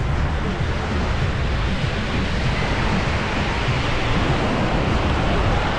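Steady wind buffeting the microphone in low rumbles over the even hiss of small surf washing up on a sandy beach.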